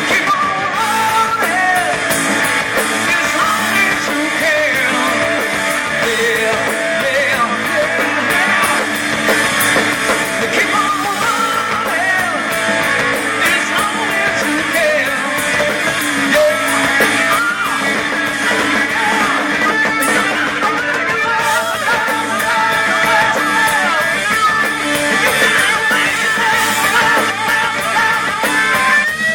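Rock music led by electric guitar, its lead line bending and wavering in pitch over the band.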